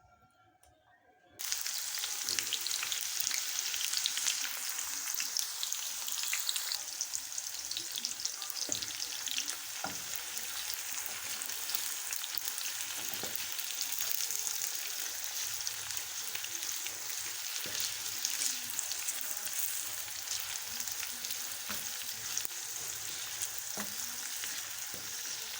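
Onions frying in hot cooking oil: a steady crackling sizzle that starts suddenly about a second and a half in, with a few knocks as they are stirred in the pan.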